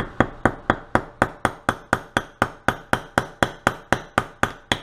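Small wooden-handled hammer tapping a part into a Carter mechanical fuel pump's metal body during reassembly. The strikes are quick and even, about four a second.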